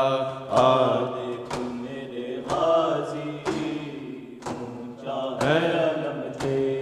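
Mourners' chest-beating (maatam), hand strikes in unison about once a second, under voices chanting a drawn-out nauha, a Muharram lament.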